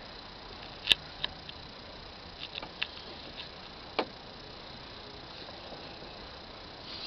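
Low steady background hiss broken by a few scattered sharp clicks and taps, the sharpest about a second in and another about four seconds in.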